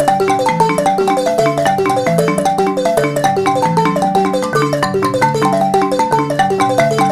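Background music: a quick, steady melody of short mallet-percussion notes, marimba-like, over a lower line of held bass notes.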